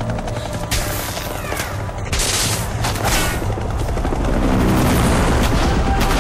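Film action soundtrack: a helicopter's rotor thudding low overhead with bursts of rapid gunfire and impacts. It grows louder about halfway through.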